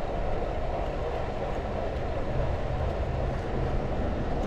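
Steady riding noise of a Trek Domane 5 road bike rolling over coarse asphalt, with wind rumbling on the microphone.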